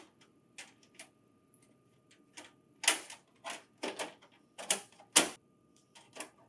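A printer's controller board access cover being fitted into place by hand: a series of about a dozen sharp clicks and knocks, the loudest a little past the middle and about five seconds in.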